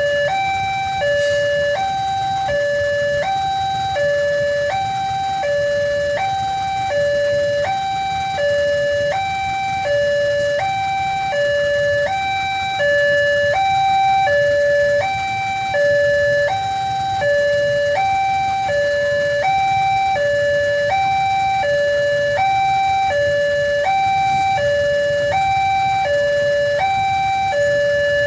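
Railway level-crossing warning alarm sounding a repeating two-tone signal, alternating between a lower and a higher pitch about every three-quarters of a second, the warning that a train is approaching. A low steady rumble runs underneath.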